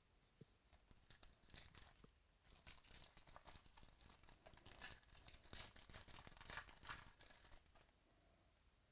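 Foil wrapper of a 2018 Donruss Baseball card pack being torn open and crinkled: a quiet, irregular run of rips and crackles starting about a second in and dying away near the end.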